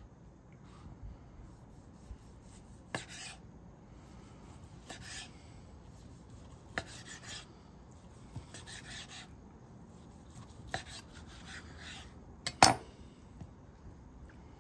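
Knife sawing through a whole cooked chicken breast on a cutting board: short rasping strokes in clusters about every two seconds, with light clicks of the blade on the board and a sharper knock near the end.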